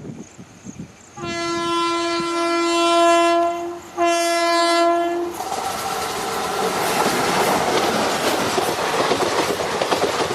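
Indian Railways locomotive horn sounding one long blast and then a shorter one, followed by the rumble and clatter of the train's wheels over the rails as it passes.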